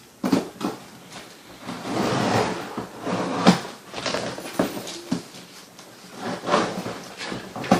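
Cardboard shipping box being worked open and handled: scraping and rustling, with several sharp knocks and clicks.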